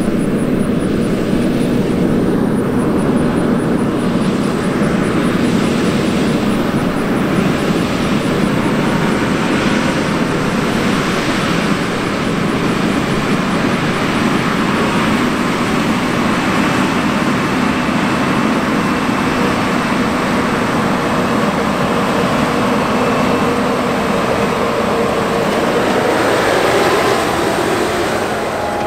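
A Challenger MT875E track tractor's 16.8-litre AGCO Power V12 diesel working under load as it pulls a 34-foot Wishek disk through corn stubble: a loud, steady engine drone mixed with the noise of the tracks and disk blades in the soil.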